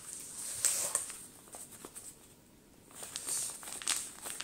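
Plastic wrapping on a vinyl record sleeve crinkling and tearing as it is opened and pulled off, in short rustles and clicks with a quieter pause about halfway through.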